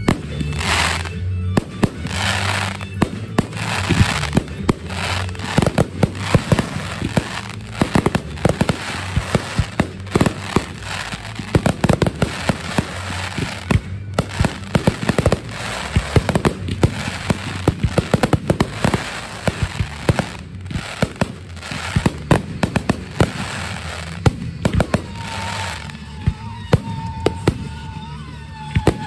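Fireworks display: a rapid barrage of aerial shell bursts and crackling, the bangs coming several times a second, with music playing underneath.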